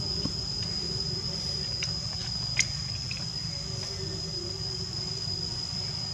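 Steady high-pitched insect drone holding one note throughout, over a low rumble, with one sharp click about two and a half seconds in.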